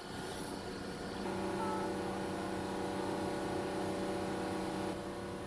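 A train's diesel engine running with a steady hum that comes in about a second in and eases off near the end.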